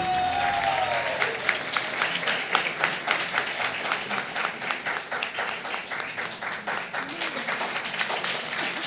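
Congregation applauding as the choir's song ends, the clapping slowly dying down. A voice rises briefly over the clapping in the first second.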